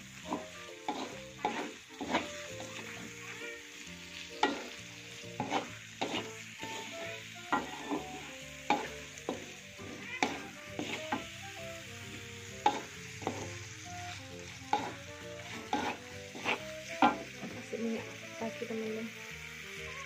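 Wooden spatula scraping and knocking against a wok in repeated strokes while stir-frying, over a steady sizzle of hot oil.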